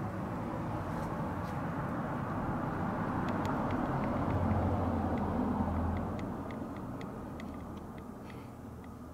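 A low rumble that swells to a peak about halfway through and then fades, with faint sharp ticks, about three a second, in the second half.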